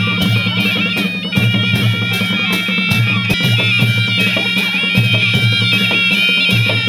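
Naumati Baja, a traditional Nepali folk band, playing: shrill reedy wind instruments hold long notes over drums keeping a steady beat.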